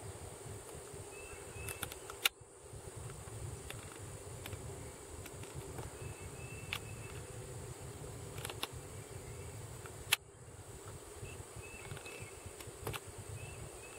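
Quiet outdoor ambience: faint, short high chirps come and go over a steady hum and hiss. Two sharp clicks stand out, one about two seconds in and one about ten seconds in.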